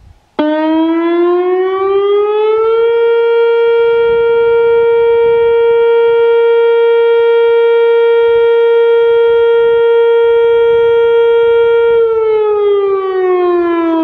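Whelen WPS-2802 electronic tornado siren sounding its Alert signal: the tone starts abruptly under a second in, rises in pitch over about two seconds, holds one steady tone for about nine seconds, then falls in pitch near the end and cuts off.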